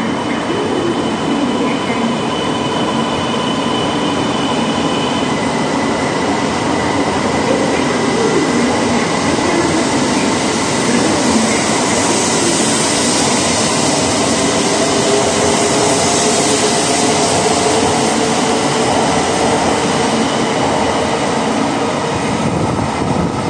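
E2 series Shinkansen train pulling out of the platform and picking up speed: a steady, loud rush of wheels and running noise as the cars pass, with a whine that rises in pitch over the last several seconds as the train accelerates.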